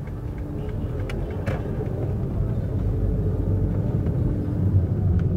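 Street traffic: a low rumble of motor vehicles that grows louder, with a few faint clicks.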